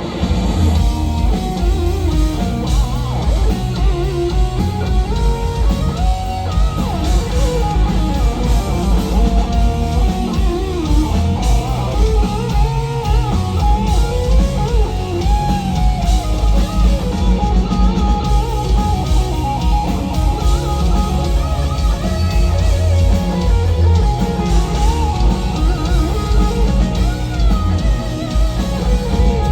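Live instrumental metal played loud: an electric guitar plays a lead melody full of bends and slides over a heavy drum kit and bass.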